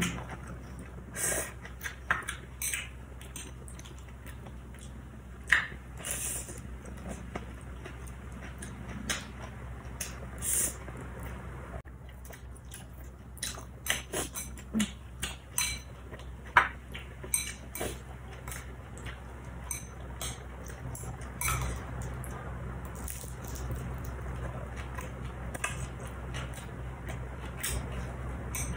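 Close-miked eating: chewing mouthfuls of rice vermicelli and fried spring roll in dipping sauce, with scattered sharp clicks of metal chopsticks against the bowl, over a low steady hum.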